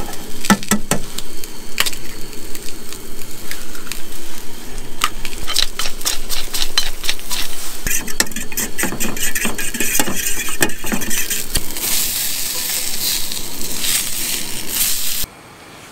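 Sausage links sizzling in a cast iron skillet on a camp stove, with sharp clinks of eggs being cracked on a steel bowl. About 8 seconds in comes a run of rapid clicking as the eggs are whisked with a fork. The sound cuts off suddenly near the end.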